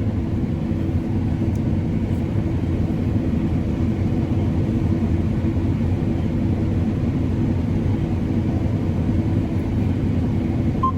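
John Deere combine running steadily while harvesting heavy wheat: an even, low engine and machinery drone.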